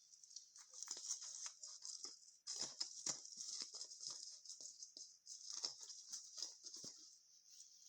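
Fir crackling and rustling: a dense, irregular run of small crackles over a steady high hiss.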